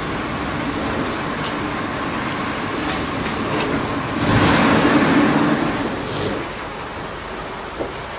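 A motor vehicle engine idling steadily with road traffic behind it; a passing car swells up about four seconds in and fades a couple of seconds later.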